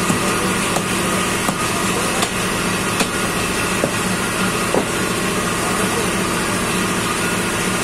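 A few sharp knocks of a heavy butcher's cleaver chopping through a cow's leg on a wooden block, spread over the first five seconds, over a steady mechanical hum.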